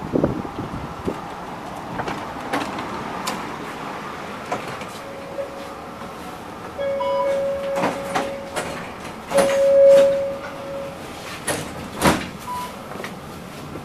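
Inside a Bombardier Variotram tram at a stop: a door warning signal sounds as three long steady beeps, the last the loudest, with two short higher pips. Knocks and clatter from the sliding doors and people boarding come in between.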